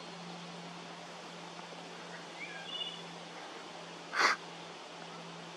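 Wood thrush giving a few soft, short notes a little past two seconds in, over a faint steady low hum. About four seconds in, a brief breathy rush of noise, the loudest sound here.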